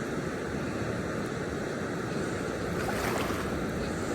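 Steady rush of a fast, rain-swollen river's current.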